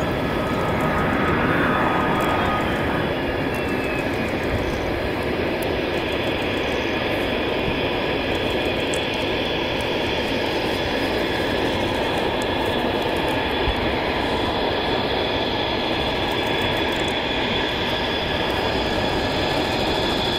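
Mitsubishi F-2 fighter jets' turbofan engines running at low power on the landing rollout and taxi: a loud, steady jet roar with a high whine. In the first few seconds the whine glides down in pitch.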